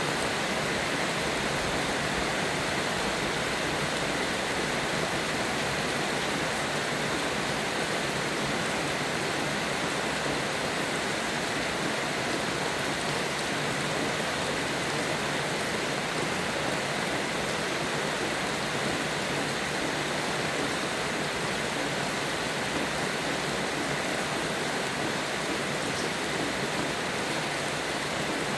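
Steady rain falling, an even hiss of rainfall with no distinct drops, thunder or bird calls standing out.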